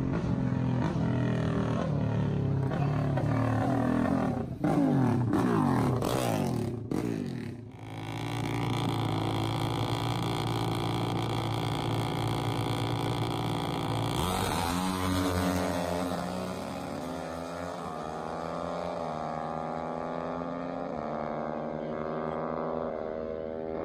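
Motorcycles drag racing: a pair of bikes accelerates hard down the strip, climbing in pitch, and fades away. Then two dirt bikes are held at steady high revs on the start line, launch about 14 seconds in, and pull away through several gear changes, the pitch rising and dropping at each shift.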